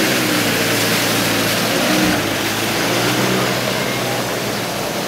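Off-road 4x4's engine revving and pulling under load as it drives through the course, its pitch rising and falling, with a broad rushing noise over it.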